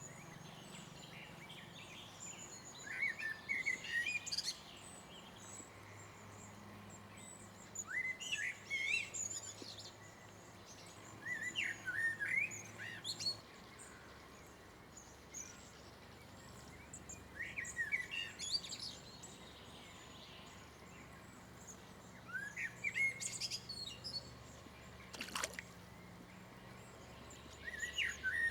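A songbird singing short, rapid phrases, one every four to five seconds, over a faint steady background. A single sharp click sounds near the end.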